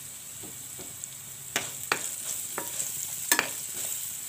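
Oil sizzling steadily around potato cubes and spices frying in a nonstick pan, with a metal spatula stirring and clicking sharply against the pan a few times from about a second and a half in.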